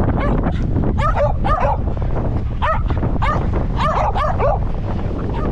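A dog giving short, high yips in quick clusters, about a dozen in all, wound up by the wind. A steady rumble of wind on the microphone runs underneath.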